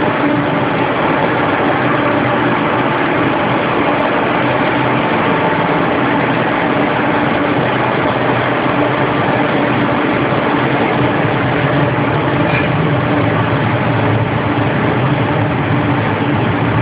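Steady, loud mechanical drone with a low hum that doesn't change: machinery running.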